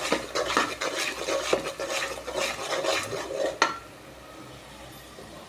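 A metal ladle stirring and scraping spice paste around a metal pot on a gas stove, in a quick run of scrapes and clinks. The stirring stops with a sharp clink about three and a half seconds in.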